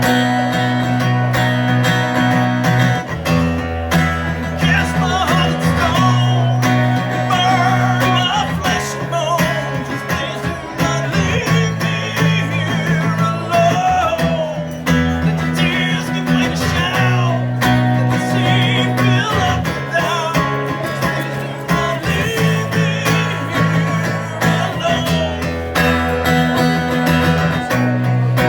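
Instrumental break of a country-blues song: guitar chords with a bass line that changes every few seconds, under a lead melody line that bends and wavers in pitch.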